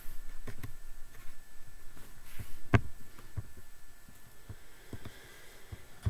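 Scattered small clicks and low knocks at a computer desk, with one sharper click a little under three seconds in, over a faint room hum.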